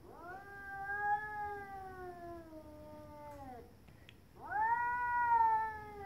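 A cat's aggressive territorial yowling: two long, drawn-out caterwauls, each slowly sagging in pitch, the second starting about four seconds in and louder than the first. It is the threat call of two cats facing off in a fight over territory.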